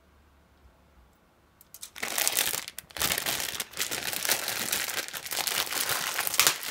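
Quiet for about two seconds, then loud, continuous crinkling from the plastic bags and runners of a Gunpla model kit being handled and lifted out of their box.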